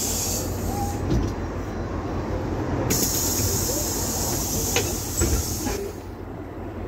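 PAZ-320302 bus engine and running gear rumbling in the cabin, with a loud steady hiss that stops about half a second in and comes back from about three seconds to just before six seconds.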